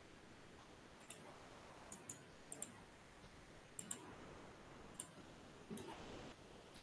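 Faint computer mouse clicks, about nine short sharp clicks at irregular intervals, some in quick pairs, as points are picked for arcs in AutoCAD.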